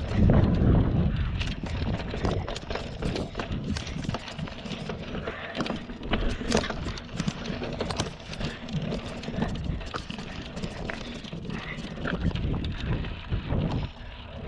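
Mountain bike riding over rough slickrock and dirt trail: a steady run of small rattles and knocks from the bike jolting over the bumps, over tyre and wind rumble, loudest about the first second.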